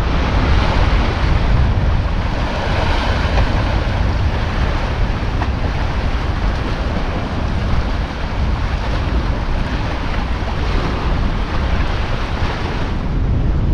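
Wind buffeting the microphone with a heavy low rumble over a steady rushing hiss; the hiss eases off near the end.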